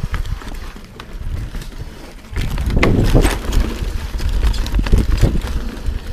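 Yeti SB6c mountain bike riding fast down a dirt singletrack: a steady rumble of tyres on the ground, with clicks and rattles as the bike goes over bumps. The rumble gets much louder about two seconds in.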